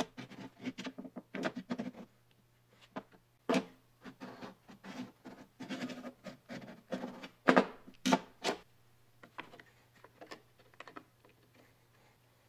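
Handling noises: an irregular series of knocks, clicks and scrapes as an ignition coil is turned over on a metal workbench and then fitted into the engine's coil compartment, thinning out near the end. A faint steady low hum runs underneath.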